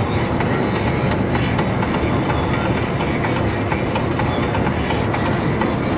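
Inside a truck cab at highway speed: a steady drone of engine and tyres on the road, with frequent small rattles and clicks from the cab.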